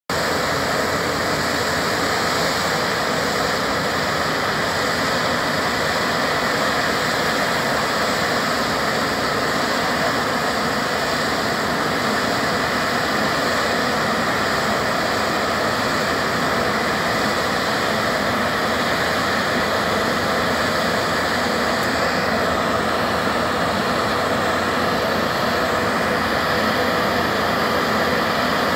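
Engine of a remote-controlled tracked house tug running steadily as it crawls along, pulling a modular home.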